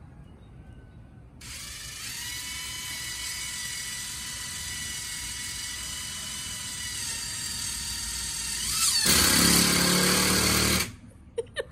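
Electric drill running with a steady whine from about a second and a half in, then much louder and fuller for about two seconds before it cuts off suddenly near the end.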